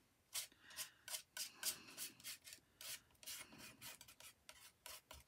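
Small metal palette knife scraping and spreading thick acrylic paint across paper in a quick run of short, faint scrapes.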